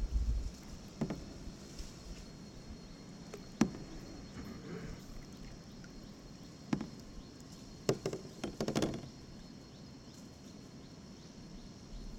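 Canoe on a lake: a wooden or plastic paddle knocking against the hull now and then, a handful of irregular hollow knocks with a small cluster near the end. Behind them, a steady high insect drone.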